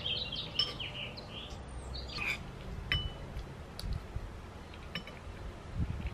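Small birds chirping in the first couple of seconds, then a metal spoon clinking a few times against a bowl while someone eats.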